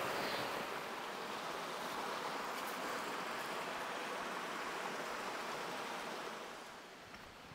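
Shallow creek rushing over rocks in small rapids, a steady wash of water that fades down near the end.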